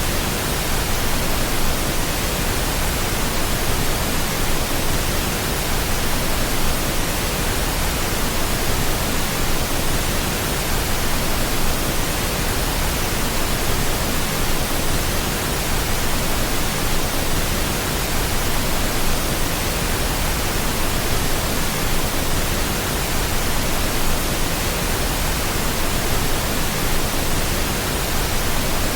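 Steady pink noise: an even, unbroken hiss spread across all pitches, with no tones or changes.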